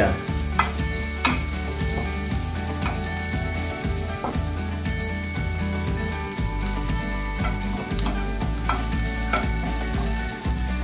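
Chopped garlic, onion and ginger sizzling in oil in a nonstick wok, stir-fried with a wooden spatula that scrapes and knocks against the pan now and then.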